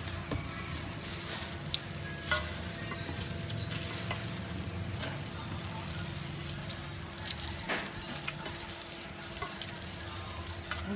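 Gloved hands tossing and turning dry tofu-skin pieces in a stainless steel bowl: a continuous crisp rustling and crackling with scattered sharp clicks, over a faint steady hum.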